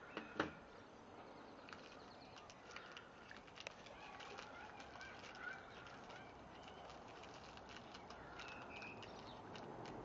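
Shih tzu puppy chewing an ice cube: faint, rapid clicks and crunches of teeth on ice, with a sharper click about half a second in.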